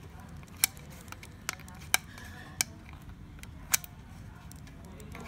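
Sharp plastic-and-metal clicks and snaps as the printer's fuser unit is handled and worked apart, about six at uneven intervals over a low steady hum.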